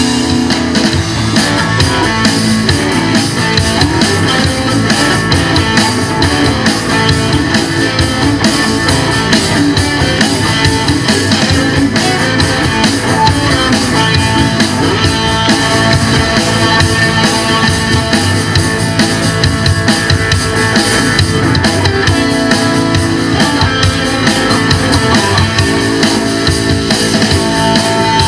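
Live classic rock and blues band playing loud: two electric guitars over a drum kit.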